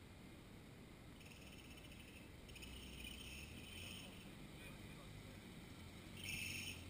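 Insects chirring in stretches, a high buzz that starts and stops several times, over the faint low rumble of a distant off-road truck's engine as it crawls over rocks.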